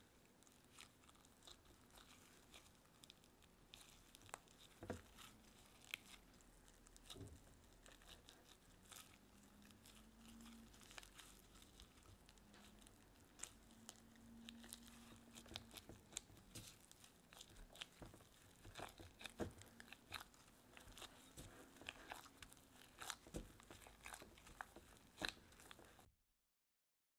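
Faint sticky squelching and crackling of bread dough being kneaded by gloved hands, as butter is worked into it, with many small irregular clicks; it stops abruptly near the end.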